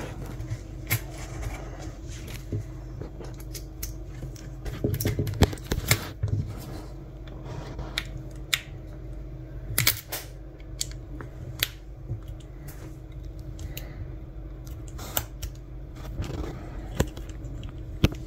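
Scattered light clicks and taps of a precision screwdriver set being handled: a Phillips bit taken from its kit and fitted, then the screwdriver working a tiny Phillips screw out of a plastic key fob case.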